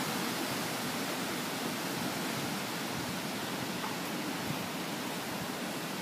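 Steady, even hiss of background noise.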